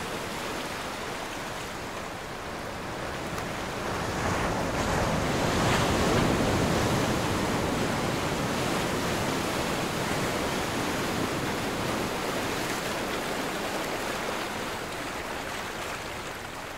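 Ocean surf washing onto a sandy beach: a steady rush that swells a few seconds in and eases slowly toward the end.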